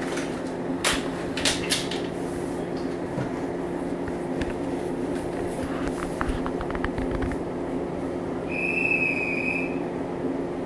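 JR East 115 series electric train standing with its electrical equipment humming steadily. A few sharp clicks come in the first two seconds, and a short, high electronic beep sounds about nine seconds in.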